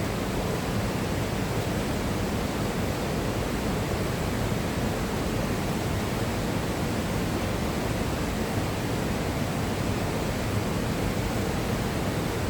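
A powerful waterfall, its falling water making a steady, unbroken rush.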